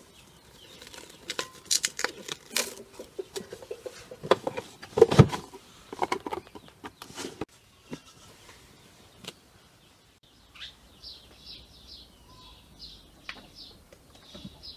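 Plastic cling film pulled off its roll and stretched over a glass bowl of dough, crinkling and crackling for several seconds. Then a small bird chirps rapidly, several short high chirps a second.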